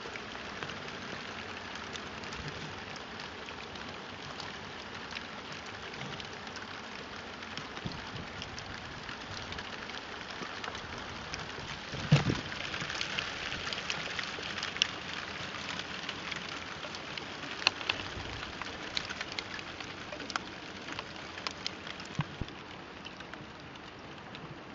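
Hail falling steadily: a dense hiss of hailstones striking the roof ledge, plant pot and garden, pricked by many small sharp ticks of individual stones. A louder knock about twelve seconds in.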